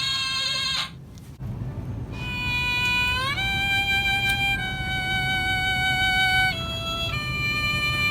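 Long held musical notes that step between pitches, with an upward slide about three seconds in and a short quieter gap about a second in, over a steady low hum.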